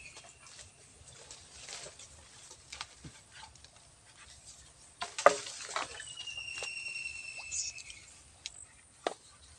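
Scattered knocks and rustles of a long bamboo harvesting pole with a collecting bag at its tip being worked among tree branches at weaver ant nests, the loudest knock about five seconds in. A long high whistle, falling slightly in pitch, sounds from about six to eight seconds in.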